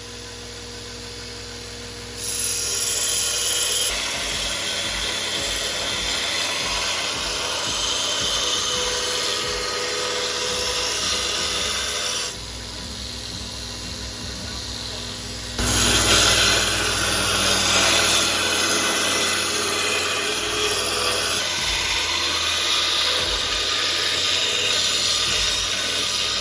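Power tool working the steel of a knife blade in several cut-together stretches, a steady noisy run that jumps louder at about 2 seconds, drops back briefly near the middle and comes back louder after about 15 seconds.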